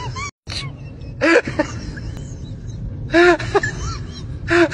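A voice makes short excited squeals three times: each is a breathy rush followed by a few quick high yelps that rise and fall. A steady low rumble runs underneath.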